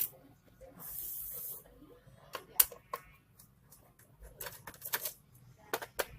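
Sharp clicks and taps of small plastic and metal laptop parts and screws being handled during disassembly, with a brief hiss about a second in.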